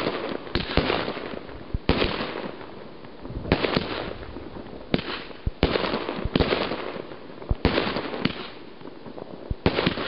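Festival 'Thunder Finale' five-stage firework battery firing: about a dozen irregularly spaced bangs as the shells lift and burst, each trailed by a hiss.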